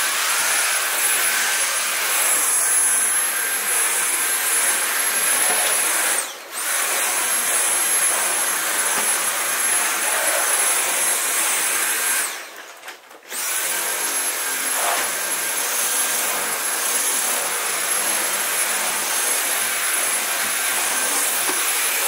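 Dyson V8 Absolute cordless stick vacuum running on its max suction setting, a steady high whine over rushing air. The motor cuts out briefly about six seconds in, and again for about a second just after twelve seconds; each time the whine rises back as the motor spins up.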